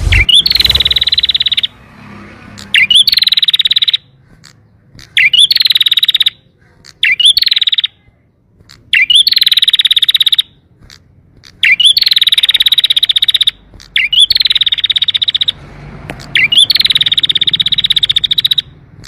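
Canary singing in repeated phrases, each a quick up-and-down whistle followed by a fast, even trill lasting about a second, about eight times with short pauses between.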